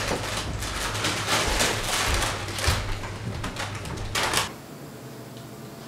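Footsteps and shuffling on a wooden floor as people get up and walk off, with a run of small knocks, then a door shuts about four seconds in.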